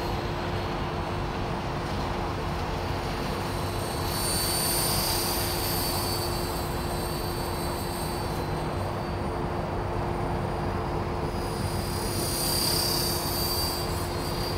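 Honey Bee King 4 radio-controlled helicopter in flight: a high whine from its motor and rotors that swells twice, a few seconds in and again near the end, over a steady low rushing noise.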